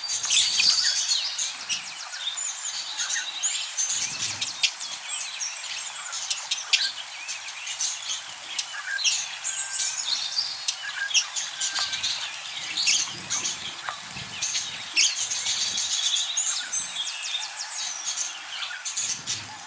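Budgerigars chirping and chattering, with many short, high calls overlapping without a break.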